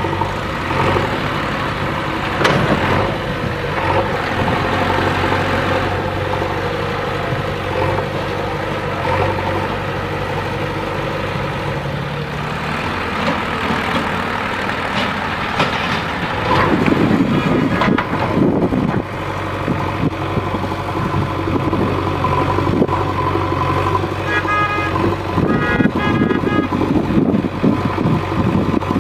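Diesel engine of a JCB 3DX backhoe loader running steadily at work, rising in rough, louder stretches as it digs and loads soil. A series of short, high beeps comes about three-quarters of the way in.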